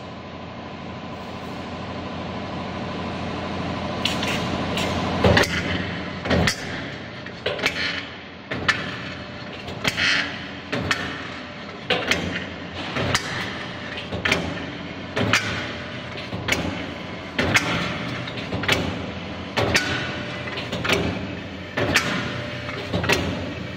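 Pipe punching machine with an automatic feeder punching slots into a square steel tube. A steady machine hum builds for about five seconds, then the punch comes down with a sharp impact about once a second as the feeder steps the tube through.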